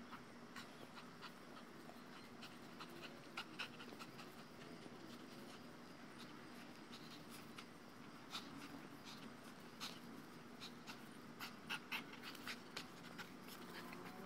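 Faint panting of a Dogo Argentino tugging on a Tether Tug pole toy, with scattered sharp clicks and knocks that come more often in the last few seconds.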